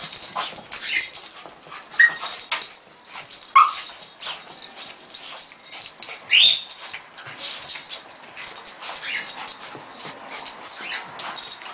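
Two small dogs play-fighting, giving short yips and whines over a run of quick scuffles, with the sharpest yips about two, three and a half, and six and a half seconds in.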